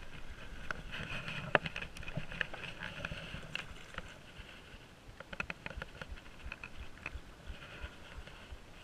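Water lapping and splashing around a stand-up paddleboard, with scattered light clicks and the whir of a Shimano Stradic 4000 spinning reel being cranked. The sound is louder in the first half.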